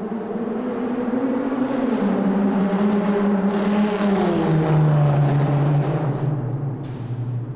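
Car engine running, growing louder and then fading, its pitch sliding downward as it goes. A short sharp click comes near the end.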